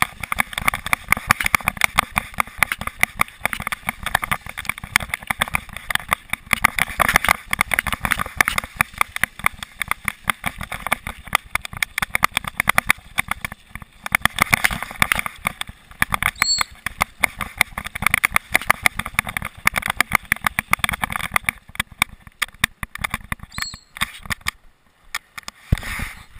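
Mountain bike clattering and rattling over a rough dirt trail, with constant quick knocks from the bike and its mounted camera, tyre noise and wind on the microphone. It eases off briefly near the end.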